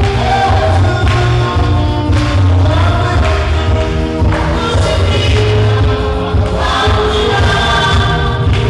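Church worship music: voices singing sustained notes over a band with a strong, pulsing bass.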